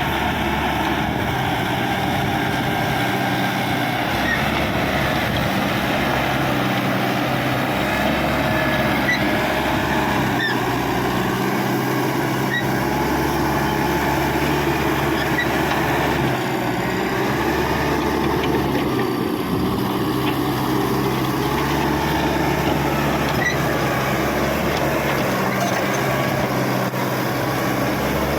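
Caterpillar D5K XL bulldozer's four-cylinder diesel engine running steadily under working load, with its steel tracks moving.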